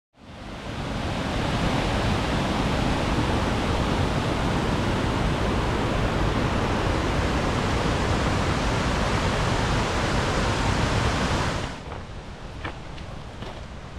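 Steady, loud rush of water pouring down a waterfall chute. It cuts off suddenly near the end, leaving a fainter rush with a few light clicks.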